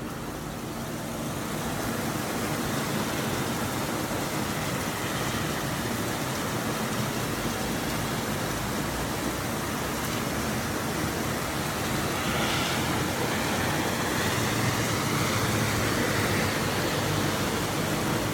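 Steady rain falling, an even hiss that builds over the first couple of seconds. A low hum joins about two thirds of the way in.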